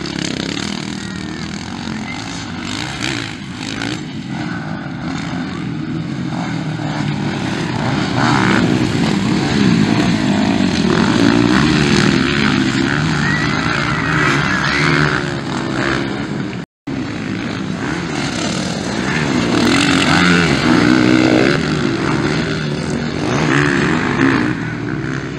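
Motocross dirt bike engines revving hard as the bikes race past on a dirt track, the engine note rising and falling through the gears. The sound cuts out for a split second about two-thirds of the way through.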